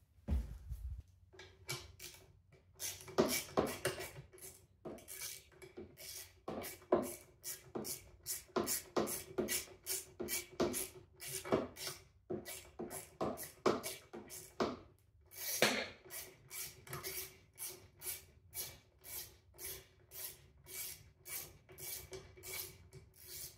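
Hand ratchet worked back and forth on fasteners: short, sharp rasping strokes, about two a second, over a steady hum.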